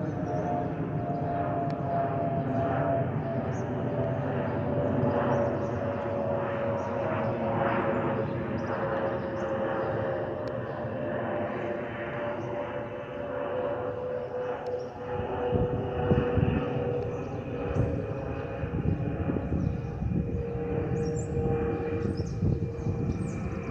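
Airbus A320 fuel overpressure protector (FOPP) vents whistling: one steady tone, slowly falling in pitch, over the jet's engine and air noise.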